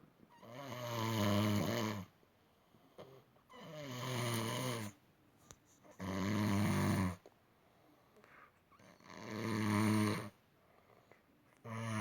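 A person snoring loudly and rhythmically: five deep, pitched snores about every three seconds, each lasting a second or two, the last starting right at the end.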